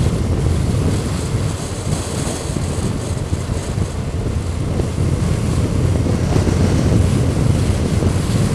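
A motorcycle cruising steadily, with wind rushing over the microphone and the engine and road noise underneath.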